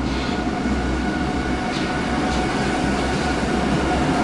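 Berlin U-Bahn train running into an underground station and along the platform: a steady rumble of wheels on the rails with a thin steady whine above it.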